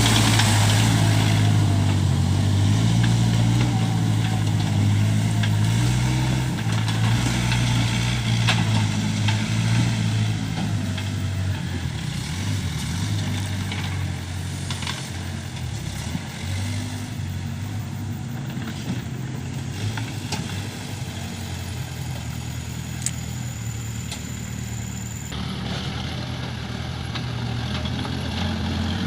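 Case 580K backhoe loader's four-cylinder diesel engine running. It is loud and shifts in pitch for the first ten seconds or so, then settles to a quieter, steady run.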